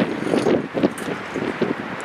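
Wind gusting on the microphone in irregular swells, over a background of road traffic.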